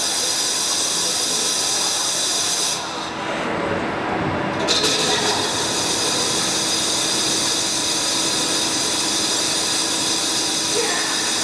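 CNC vertical lathe turning a wheel hub, a steady hiss of coolant over the running machine with a steady tone underneath. About three seconds in the highest part of the hiss drops away for about two seconds, then comes back abruptly.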